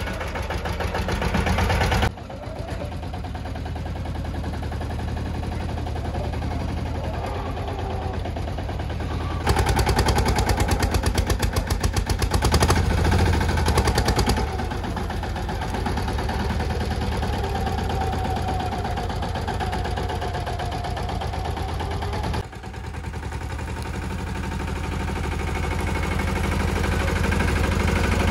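Escort Steeltrac 15 mini tractor's engine running as the tractor drives with a chisel plow mounted, with a rapid, even engine beat. It gets louder for a few seconds near the middle.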